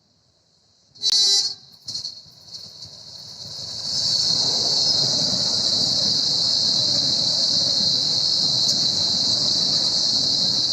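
ED4M electric multiple unit sounding a short horn toot about a second in, then the train's running noise swelling over two or three seconds as it arrives and staying loud and steady as it passes.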